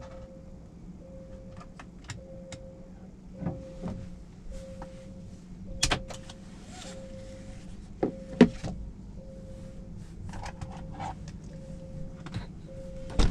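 A car's electronic warning chime beeping at a steady pace, about three beeps every two seconds, inside the cabin of a 2023 Ora Good Cat electric car. Scattered clicks and knocks from the cabin go with it, the loudest knock about six seconds in and two more about eight seconds in.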